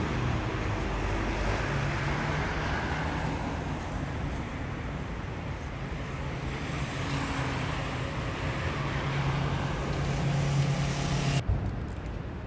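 City street traffic noise: a steady hum of vehicles with a low engine drone that grows louder near the end, then cuts off abruptly about eleven seconds in.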